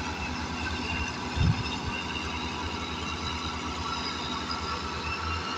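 An engine running steadily with a fast, even low pulsing, and one short low thump about a second and a half in.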